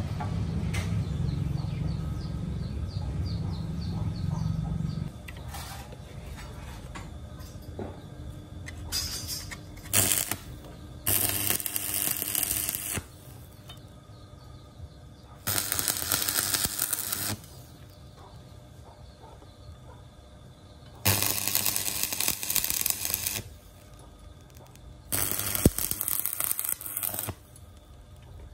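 Stick (arc) welding a steel strap to a lathe chuck: four short runs of crackling arc, each about two seconds, with pauses between them, like a series of tack welds. A low hum plays for the first few seconds.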